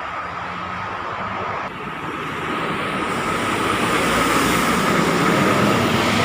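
Road traffic: a vehicle passing close by, its noise building over a few seconds and easing off near the end.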